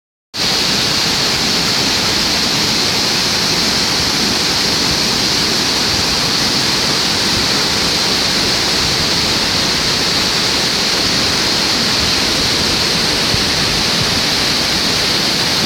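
Waterfall: a steady, loud rush of falling water with a strong hiss.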